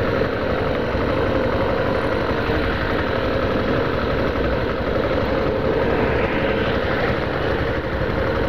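Yamaha Factor 150 motorcycle's single-cylinder four-stroke engine running steadily while the bike rides along.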